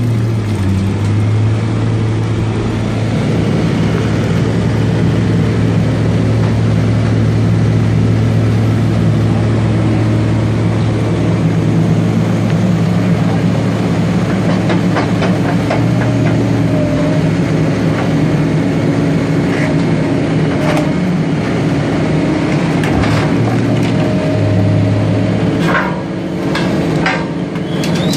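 Scrap shear baler's hydraulic drive running with a steady low hum that changes tone a few times as the machine works. Scattered metallic knocks sound over it.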